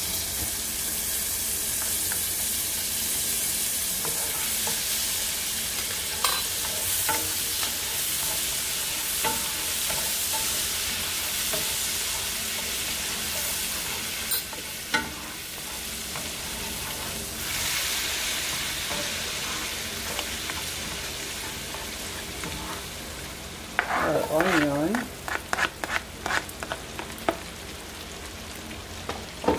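Garlic and butter sizzling in a stainless-steel skillet, stirred with a spoon and then a spatula, with occasional taps of the utensil on the pan. Near the end a brief wavering tone is followed by a run of sharp taps as chopped onion goes into the pan.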